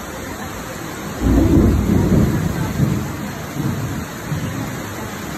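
Heavy rain pouring steadily, with a low rumble of thunder that starts about a second in and dies away over the next few seconds.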